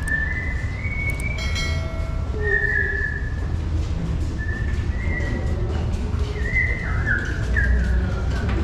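A whistled tune: single high notes held about half a second to a second each, stepping and sliding up and down in pitch, over a steady low rumble.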